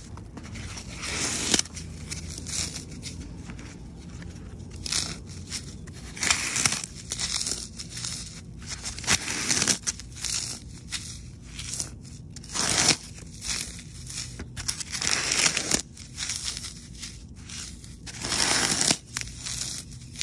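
Wet, soapy Sahara dry-floral foam being crushed and crumbled between fingers: irregular crunchy, crackling bursts every second or two, each lasting under a second.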